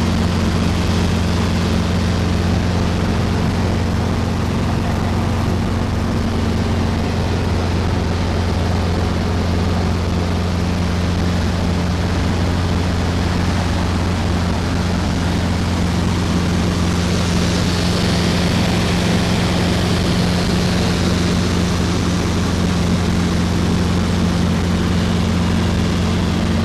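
Steady cabin drone of a Robinson R22 helicopter in cruising flight: the piston engine and rotors run at constant power, a low hum under an even rushing noise.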